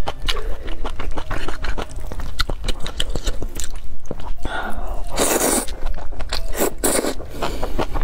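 Close-miked eating of spicy stir-fried noodles: wet chewing and lip-smacking clicks throughout, with two loud noodle slurps, a longer one about five seconds in and a shorter one near seven seconds.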